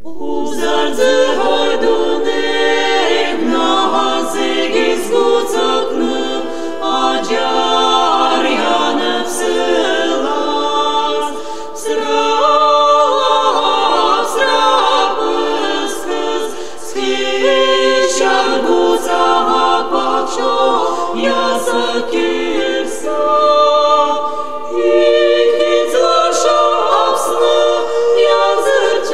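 Unaccompanied choir singing sustained, slowly moving chords. A new piece starts right at the beginning.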